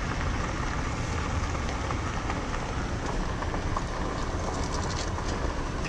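A car driving slowly, heard from inside the cabin as a steady road and engine rumble. Near the end the tyres crackle on a gravel drive.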